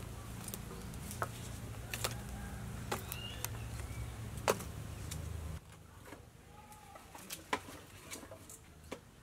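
Wood fire crackling, with sharp scattered pops of burning firewood over a low steady rumble that stops abruptly a little past halfway. Birds chirp faintly in the background.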